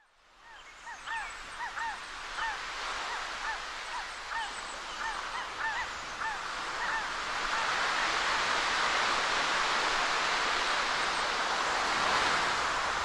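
Short honking bird calls repeating about a dozen times over a rushing noise like surf. The noise fades in, and the calls stop about seven seconds in while the rush grows to fill the rest.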